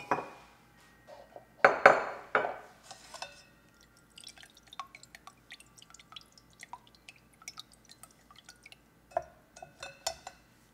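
Liquid dripping steadily through a fine mesh strainer into a glass measuring cup, many small irregular drips. A few louder knocks and clinks of glass come near the start and again near the end.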